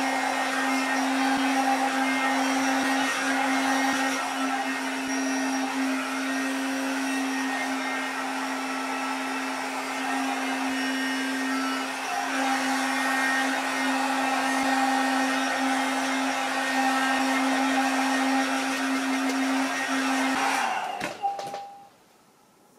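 Vitek hair dryer with a round brush head running steadily with a constant hum and blowing air while drying short hair, then switched off near the end.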